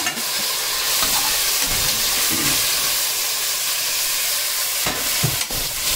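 Chopped tomatoes sizzling loudly in hot oil in a pressure cooker as they go into the fried onions and ginger-garlic paste, a steady hiss of steam and spitting fat. A steel ladle stirring knocks against the pan a couple of times near the end.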